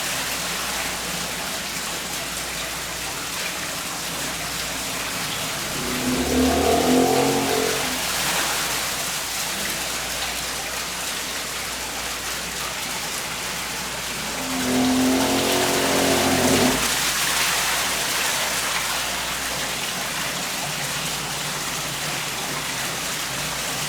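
Running water splashing steadily from a water wheel. Two brief pitched sounds rise above it, about six and fifteen seconds in.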